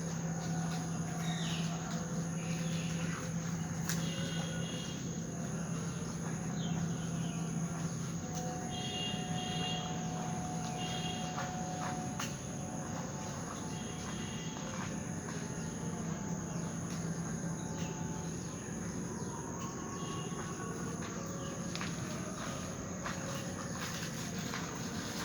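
Insects chirping in a regular high pulse over a steady low hum, with scattered small clicks.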